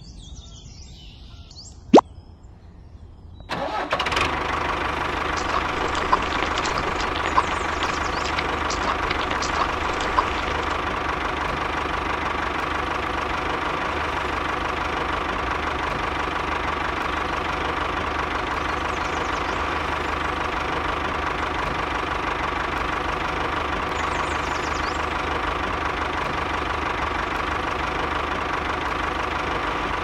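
Small motor of a miniature toy tractor, switched on about three and a half seconds in and then running with a steady hum. A single sharp click comes just before it starts.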